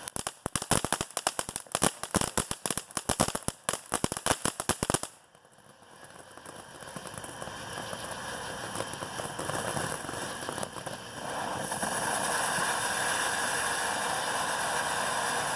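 TNT Fireworks Star Avenger fountain crackling in a dense, rapid string of pops for about five seconds; the crackle stops suddenly and a steady hiss of the fountain's spray builds up and holds.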